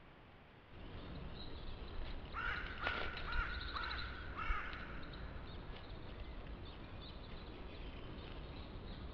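A crow calling a quick run of about five harsh caws, over a faint steady outdoor hiss.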